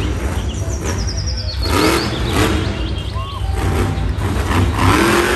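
Monster truck's supercharged engine running loud and rough, revving up about two seconds in and again near the end.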